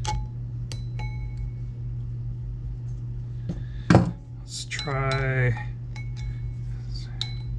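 Light metal clicks and clinks of tools and steel parts while working a ring off a hydraulic cylinder part, with a sharper metal knock about four seconds in. A short hummed or voiced sound comes just after, over a steady low hum.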